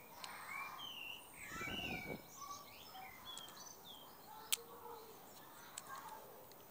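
Small birds chirping and singing throughout, with a short rustle about two seconds in. A sharp click about four and a half seconds in, and a smaller one near six seconds, come from a hand-held spinning fishing reel being worked.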